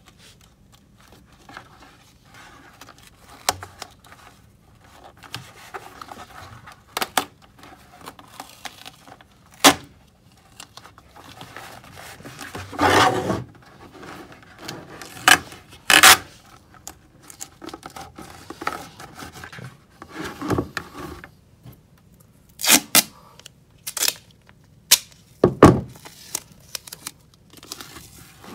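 Duct tape and a hard plastic bucket being handled: irregular knocks, scrapes and rustles as a rope strand is taped to the inside wall of the bucket, with a short tearing sound about thirteen seconds in.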